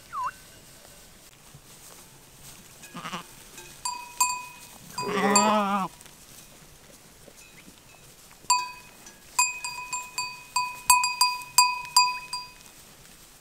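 Bells on grazing sheep and goats clanking and ringing, a few strikes about four seconds in and then many irregular strikes through the second half. Around five seconds in, one long quavering bleat from the flock.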